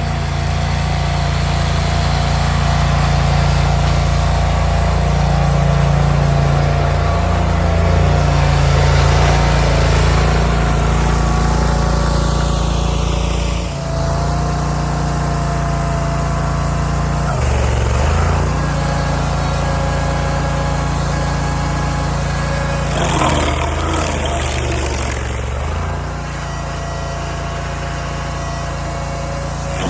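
Barreto SG3630 stump grinder's gas engine running loud and steady at working speed. Its note shifts briefly twice, about 17 seconds in and again about 23 to 26 seconds in, as the cutter wheel takes load.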